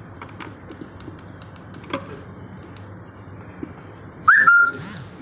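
Light clicks and handling of the plastic parts of a pet feeder, with a short high squeak about four seconds in that drops slightly in pitch.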